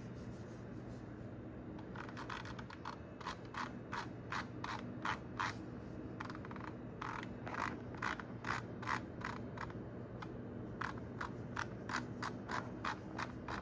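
A run of small sharp clicks from computer input while operating a PC, irregular at about two or three a second, starting about a second and a half in, over a faint steady low hum.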